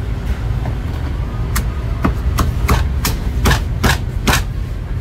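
Cleaver chopping roast goose on a wooden chopping block: a quick run of about eight sharp chops, about three a second, over a steady low hum.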